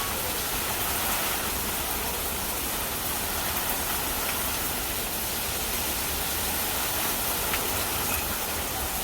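Heavy hurricane rain falling steadily, an even hiss with no break.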